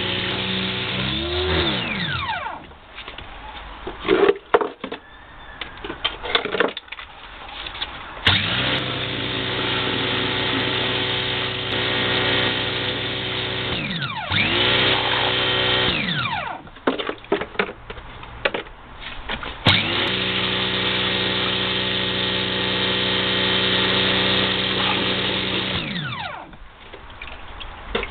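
Pressure washer spraying water onto a plastic heater casing, its pump motor cutting in and out with the lance trigger: it runs steadily, winds down with a falling pitch and stops for a few seconds, then starts again, several times over. Short knocks and clatter fill the pauses.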